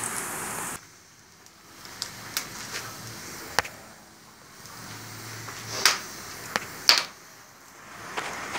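Wood fire burning in a newly built brick fireplace: irregular sharp pops and crackles over a soft rushing noise that swells and fades.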